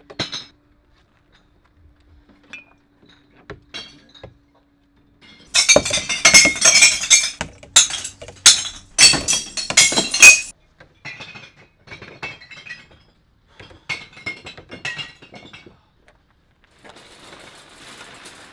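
Glass bottles fed through the hole of a bottle bank, clinking and smashing inside the bin. A dense run of loud crashing glass comes from about five and a half to ten and a half seconds in, with scattered clinks before and after.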